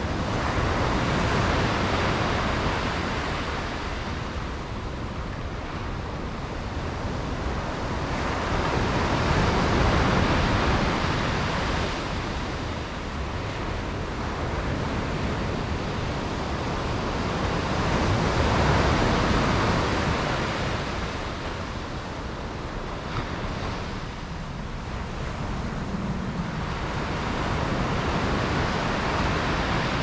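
Sea waves breaking and washing up on the shore. The surf swells and falls back about every nine seconds, four surges in all.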